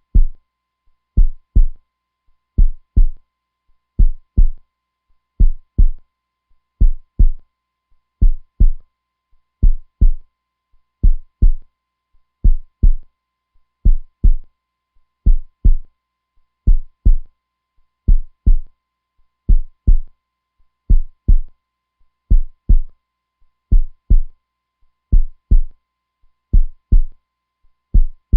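Heartbeat, steady and slow: deep lub-dub double thumps, one pair about every one and a half seconds.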